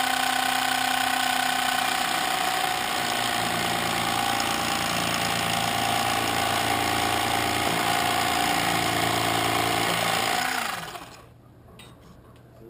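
Great Planes electric hinge slotter running, its small motor driving the vibrating blade as it is held against a balsa trailing edge to cut a hinge slot. It runs steadily with a buzzing note that shifts a few seconds in, then winds down with falling pitch and stops near the end.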